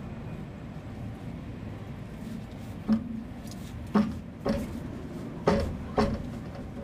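A series of five sharp knocks at uneven intervals, starting about three seconds in, over a steady background rumble.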